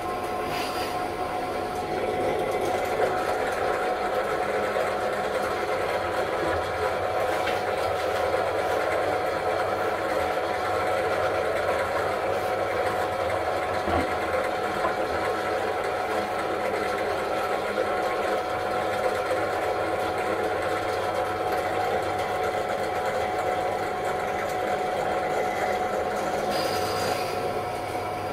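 Benchtop drill press running steadily, with a constant motor whine, while a 10 mm bit is fed through stacked wooden boards to drill dowel holes. It gets a little louder about two seconds in and eases off near the end.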